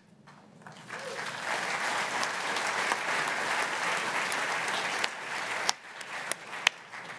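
Large audience applauding, swelling over the first second, holding steady, then dying away after about five seconds, with a few sharp knocks near the end.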